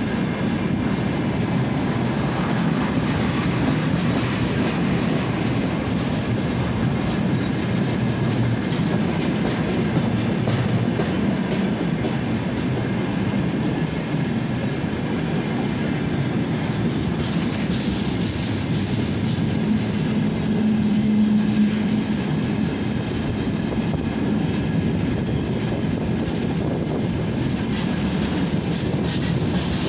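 Freight train of gas tank cars rolling slowly past, steel wheels rumbling and clacking over the rail joints. A low tone swells briefly about two-thirds of the way through.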